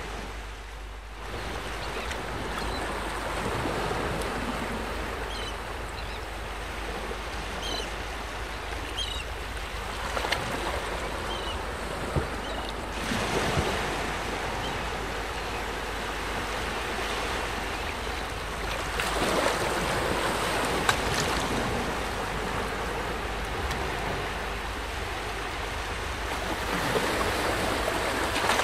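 Waterside ambience: a steady rush of wind and water noise that swells and fades every few seconds, with a few short high chirps in the first dozen seconds.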